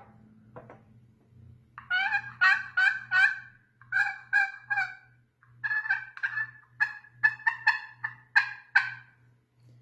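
Turkey friction pot call scraped with a turned wooden striker, giving hen-turkey yelps. A first run of about five notes starts some two seconds in, then after a short break comes a longer, quicker run of a dozen or so notes.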